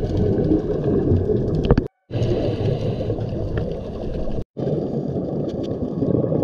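Muffled underwater ambience picked up by a camera in its housing: a dense, steady low rumble. It cuts out twice, briefly, about two seconds in and again midway.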